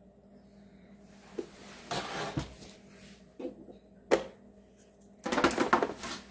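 Handling noises on a plastic and metal deep fryer: a few scattered knocks and clicks, then about a second of busy clattering and rustling near the end as hands handle the fryer lid and its wrapped power cord.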